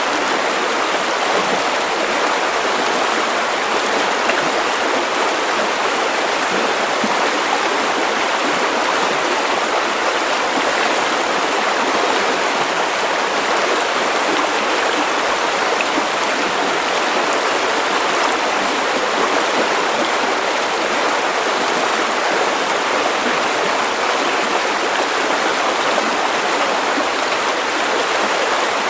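River water flowing and splashing over stones, a steady rushing with no breaks or changes.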